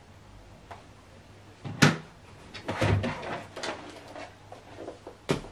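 Handling noise at the soundbar: a sharp knock about two seconds in, then a run of clicks and clatter, and another knock near the end.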